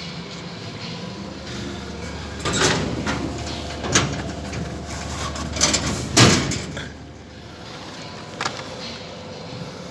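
Hot Wheels vending machine dispensing a purchase: a low motor hum with several knocks and clunks, the hum stopping about seven seconds in.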